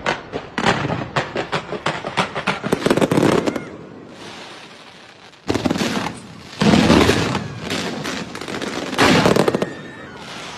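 Fireworks going off in rapid volleys of sharp crackling bangs, easing into a quieter hiss, then bursting loud again about halfway through and twice more before the end.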